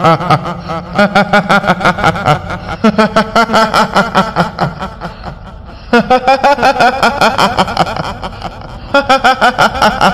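A kuntilanak ghost's high-pitched, rapid 'hihihi' cackling laugh, a horror sound effect, coming in loud runs with softer stretches between. A low drone sits underneath.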